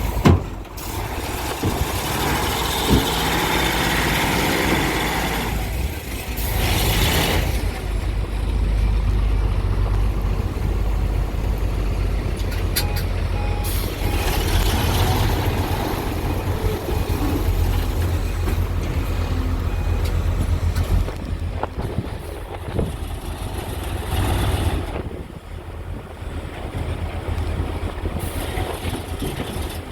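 Heavy diesel engine running steadily with a deep low rumble, with a brief hiss about seven seconds in.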